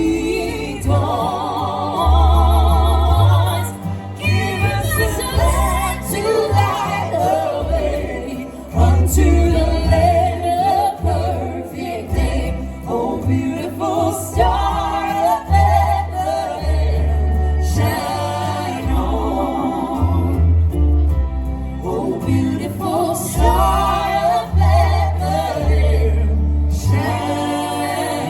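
Group of voices singing a Christmas gospel-style song with vibrato, over low bass notes that change every second or so.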